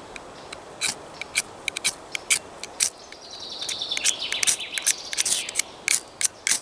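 Firesteel (ferrocerium rod) struck over and over with its scraper to throw sparks onto tinder that has not yet caught. Short, sharp scrapes come about three a second, with a longer rasping scrape about four to five seconds in.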